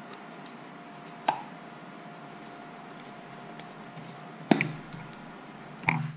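Hands working a motorcycle turn signal's plastic amber lens and housing: three sharp plastic clicks, about a second in, past the middle and near the end, over a faint steady hum.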